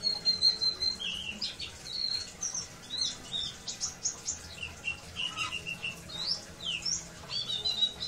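Caged white-eye (pleci) singing a busy run of short high chirps and quick gliding whistles, over a faint steady patter of water.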